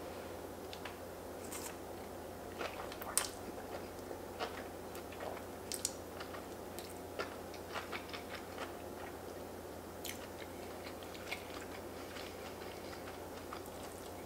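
Close-up eating sounds: fettuccine in a creamy curry sauce being slurped in and chewed, with scattered short wet clicks and smacks, the loudest about three seconds in, over a faint steady hum.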